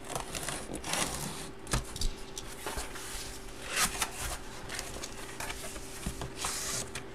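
Cardboard photo box being handled and opened: irregular scrapes and rustles of cardboard sliding and rubbing, the strongest near the start, in the middle and near the end.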